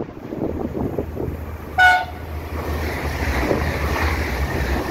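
SNCF TER regional multiple unit sounding one short horn blast about two seconds in as it approaches. Its running noise then grows as it comes past close by, with wind on the microphone.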